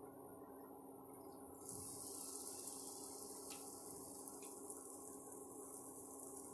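Malpua batter hitting hot ghee in a pan: a sudden sizzle starts about two seconds in and keeps on as the batter fries, with two light clicks. A steady hum from the running induction cooktop sits underneath.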